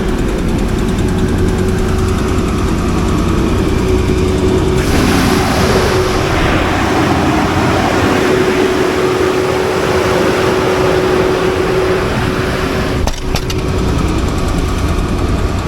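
400 kW natural-gas standby generator running steadily with a constant hum. About five seconds in, a loud rushing noise rises over it, easing off near the end with a brief click.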